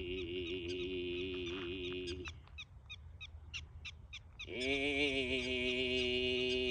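Mongolian-style throat singing: a low droning voice with a bright ringing overtone band held high above it, the pitch wavering slightly. It breaks off a little over two seconds in and resumes about four and a half seconds in, and short ticks, about four a second, fill the gap.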